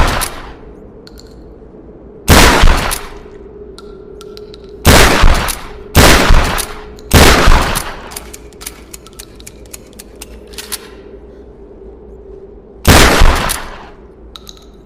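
Trench shotgun firing: five loud shots, the middle three about a second apart, each with a short echoing tail, and faint clicks in the gaps between them.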